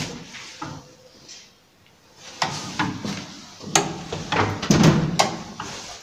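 Knocks and clacks from the manual doors and door latch of an old Zremb elevator being worked, coming in two clusters about two and a half and four to five seconds in.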